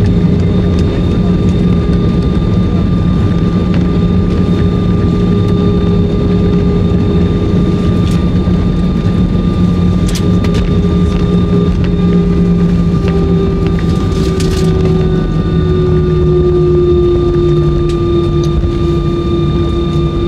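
Airbus A320 cabin noise: the engines and airflow make a steady, loud rumble with a hum of several steady tones. The tones drop slightly in pitch a little past the middle, and a few brief clicks or rattles come through.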